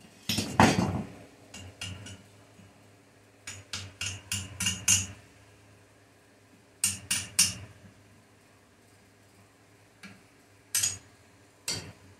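Hammer striking welded steel angle iron clamped in a bench vise. The blows give irregular metallic clanks: a loud ringing one just after the start, a quick run of about six strikes around four to five seconds in, three more about seven seconds in, and a few single knocks near the end.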